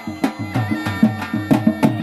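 Background music with a steady drum beat and pitched instruments.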